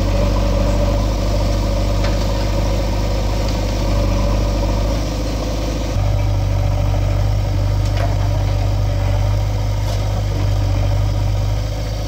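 Diesel engines of a JCB 3DX backhoe loader and farm tractors running steadily at close range, a deep continuous hum that shifts abruptly about halfway through.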